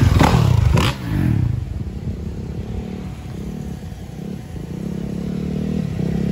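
Dirt bike engine revving as the bike rides close past, its pitch dropping over the first second. A steadier engine sound follows for the rest.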